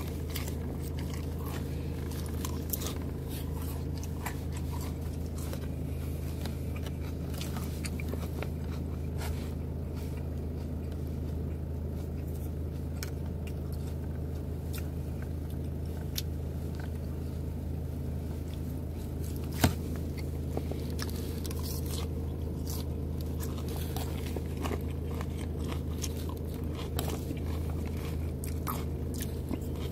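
Close chewing and crunching of a lettuce salad, with a fork clicking and scraping in a plastic takeout container, over a steady low hum. One sharp click stands out about twenty seconds in.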